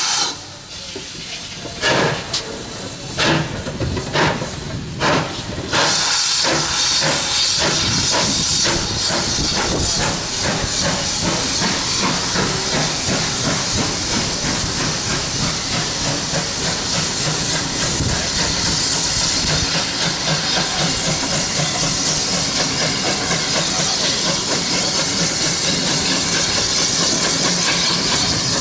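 Ex-GWR 57xx pannier tank steam locomotive working a train. A handful of separate, slow exhaust beats come in the first few seconds, then about six seconds in it settles into a loud, continuous steam hiss with a fast, even beat.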